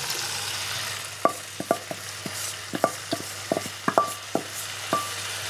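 Wooden spatula knocking and scraping against a stainless steel bowl as pickled bamboo shoots are scraped out into a wok: about a dozen sharp taps, several leaving a short metallic ring. Under them the curry in the wok sizzles steadily.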